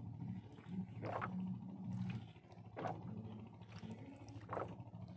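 Fishing reel being cranked against a heavily loaded line, in three short bursts about every second and a half to two seconds, over a steady low drone.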